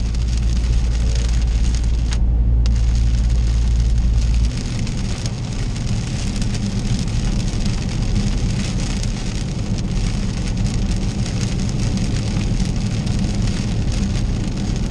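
Rain spattering on the windshield over steady tyre and road noise, heard from inside the cabin of a Dodge Charger Scat Pack driving on a wet freeway. A deep rumble drops away about four and a half seconds in.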